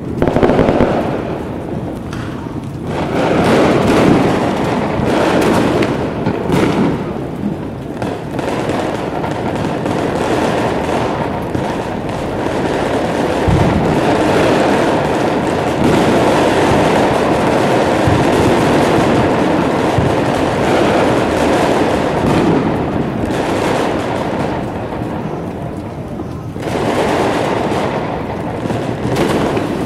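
Distant fireworks going off, heard as a few low booms, over a steady rush of wind on the microphone.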